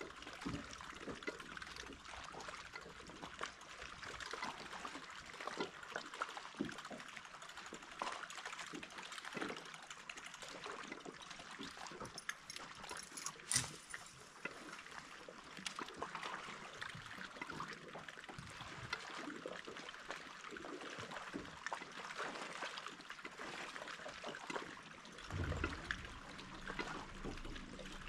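Small waves lapping and trickling against the hull of a bass boat, a faint, steady slosh made of many small splashes. A single sharp click comes about halfway through, and a low rumble near the end.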